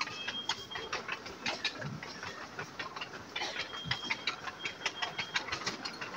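Supermarket background: a steady, irregular clatter of light clicks and rattles, with a few short high-pitched beeps about a second in and again past the middle.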